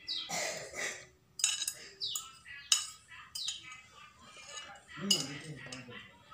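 Metal spoon scraping and clinking against a plate as chopped chilies, shallots, garlic and tomato are pushed off into a plastic blender jug, with a few sharp clinks. Short falling bird chirps sound several times behind it.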